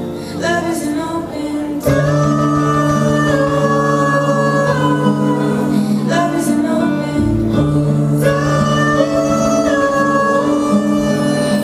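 Fireworks-show soundtrack music with singing over a held bass line, with a few sharp hits, the loudest about two seconds in.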